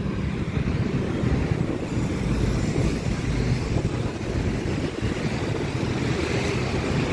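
Steady road traffic noise from cars and motorcycles passing on a busy multi-lane city road, a continuous low rumble with no single vehicle standing out.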